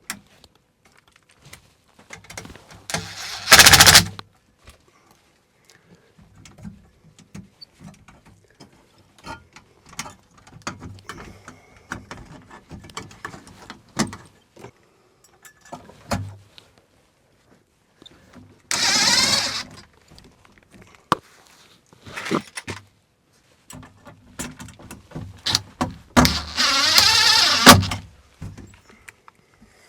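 Small clicks and rattles of hands working on an electrical outlet box, with three short bursts of a cordless drill-driver running, the longest near the end.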